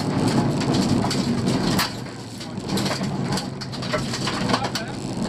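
Honda Civic rally car's 1.3-litre twin-carburettor engine running hard, heard from inside the cabin, with gravel crunching under the tyres and stones clicking against the underbody. The engine eases off about two seconds in, then pulls again.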